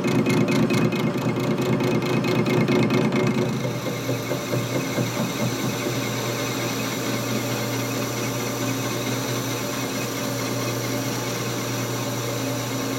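Metal lathe running as it takes a cut on a steel nut, turning down the outside. It is louder, with a rhythmic chatter, for about the first three and a half seconds, then runs on with a quieter, steady hum.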